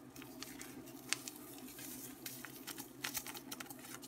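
Spice powder being shaken from a container over chicken pieces in a bowl: an irregular scatter of light clicks and taps over a steady low hum.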